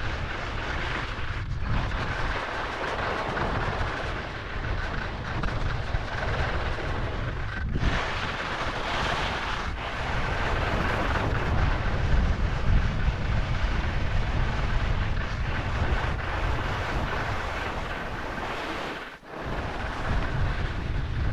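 Wind buffeting the microphone of a body-mounted action camera as a skier descends, over a steady rushing hiss of skis sliding on snow. The rush drops out for a moment near the end.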